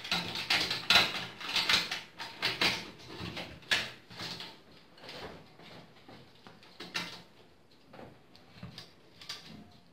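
Hands working fan cables and plastic connectors inside a steel PC case: rustling, scraping and clicking, busiest over the first few seconds, then scattered single clicks.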